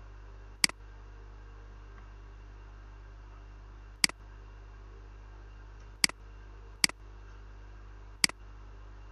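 Five sharp computer mouse clicks, spaced unevenly, over a steady low electrical hum.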